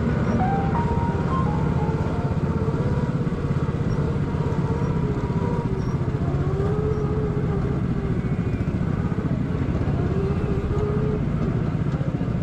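Small engine of a ride-on mini jeep running steadily as it drives along a gravel track, heard from on board.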